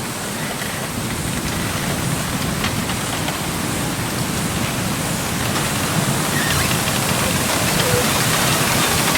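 Wind blowing through a bamboo grove: a steady rushing rustle of bamboo leaves, growing slightly louder.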